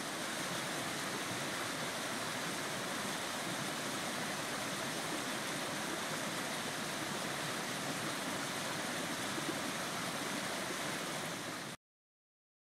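Shallow stream rushing over rocks, a steady, even rush of water that cuts off suddenly near the end.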